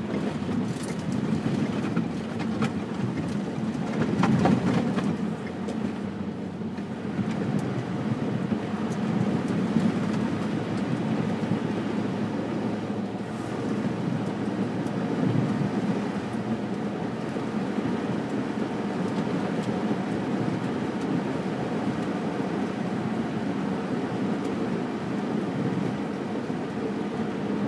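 Steady driving noise heard from inside a car's cabin: engine and tyres running on a snowy road.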